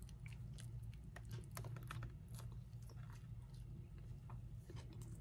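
Faint close-up chewing of a crispy fried taco shell: scattered small crunches and mouth clicks, thickest in the first half, over a steady low hum.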